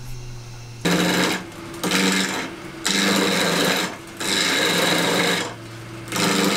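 Wood lathe motor humming while a turning gouge cuts a spinning oak spindle blank. The cuts come in five loud passes about a second apart, each lasting half a second to a second, with only the motor hum in the pauses.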